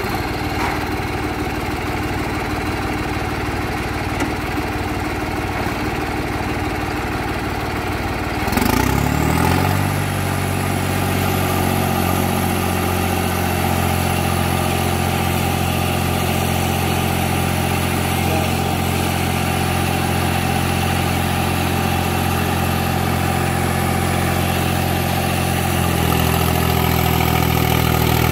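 New Holland 5620 tractor's diesel engine running steadily, then revving up about nine seconds in and holding a higher, steady speed.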